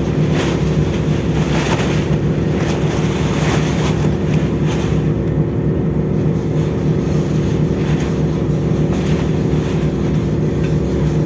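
A ship's engines and machinery give a steady low drone made of several constant hums. Wind gusts across the microphone.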